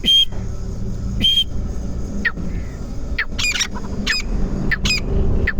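Grey francolin (desi teetar) calling: two short, sharp notes in the first second and a half, then from about three seconds in a run of ringing, clipped call notes repeated quickly and evenly.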